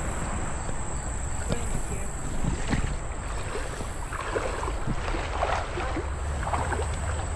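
Wind buffeting the microphone over outdoor water noise, with a steady high whine and scattered faint clicks.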